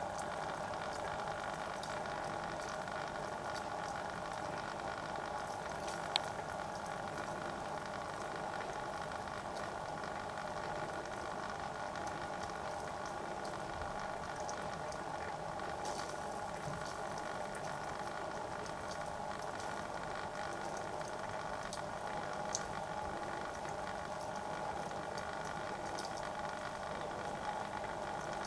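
Tornado lamp running: its small motor hums steadily as it stirs the water inside. A few faint ticks come through, the sharpest about six seconds in.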